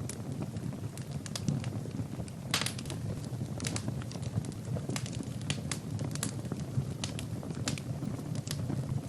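Wood fire burning in a fireplace: a steady low rumble of flames with frequent sharp crackles and pops from the burning logs, one louder pop about two and a half seconds in.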